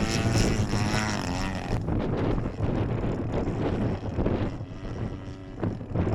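DL-50 two-stroke gas engine of a large RC aerobatic plane in flight, its pitch rising and falling over the first couple of seconds, then fainter under wind buffeting the microphone.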